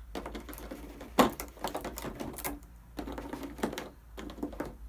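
Small plastic figure stands and their packaging being handled: irregular light clicks and crackling, with a sharper click about a second in.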